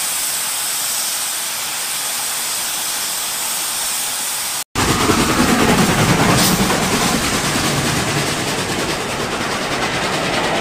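A steady hiss, then after a brief cut about halfway through, an HO scale model train running past close by, its wheels rumbling and clicking over the track.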